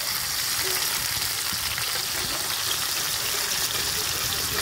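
Masala-coated pomfret slices sizzling steadily in hot oil on a dosa griddle.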